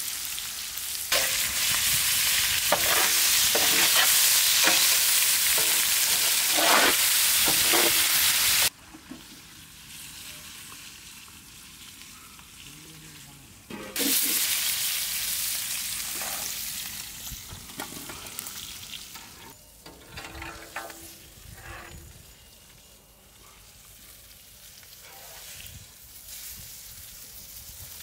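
Food sizzling as it fries in hot oil in a pan, with a utensil stirring and scraping through it. The sizzle stops abruptly about nine seconds in, comes back loud a few seconds later and then dies down to a quieter fry.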